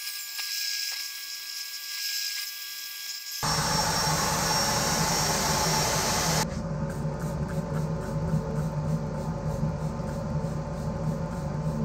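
Wood lathe running with a turned wooden plate on it, a drill-driven foam sanding pad working the spinning plate at first; the sound changes abruptly twice, at about three and a half and six and a half seconds in, with a steady low hum and, near the end, an even repeating pulse.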